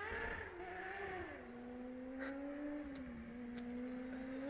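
An engine running with a steady tone: it is held at high revs at first, then drops back about a second and a half in to a lower, steady speed. Two faint clicks are heard in the second half.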